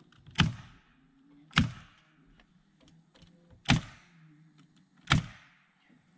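Nail gun firing four times, a second or two apart, driving nails into a window trim board; each shot is a sharp crack with a short ring after it.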